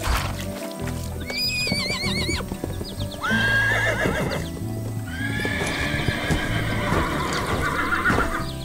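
Cartoon horse sound effects: a horse whinnying three times in wavering calls, with clip-clopping hooves, over background music.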